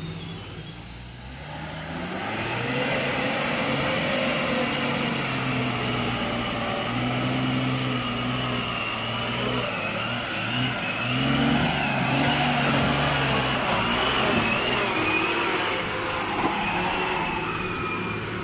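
Heavy diesel dump truck's engine running under load as it drives slowly past on a muddy road, coming in about two seconds in and growing louder, its pitch rising and falling with the throttle.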